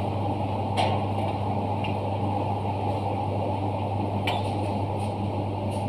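Italclean Liberty 200 dry-cleaning machine running with a steady mechanical hum, with a sharp click about a second in and another about four seconds in.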